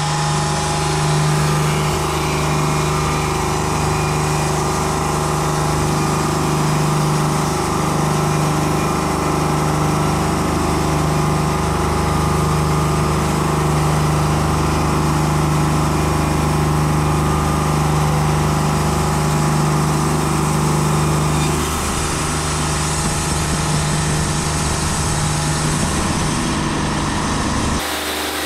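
Wood-Mizer LT40 Wide hydraulic portable sawmill running steadily, its bandsaw blade cutting along a log with a constant engine hum under the noise of the cut. The sound eases slightly a little over two thirds of the way through and shifts abruptly near the end.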